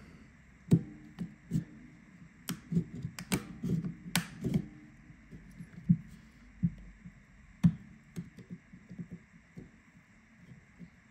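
Plastic clips of a Samsung Galaxy A23 5G's housing being pried loose with a scalpel: irregular small clicks and light knocks, with a few sharper snaps scattered through.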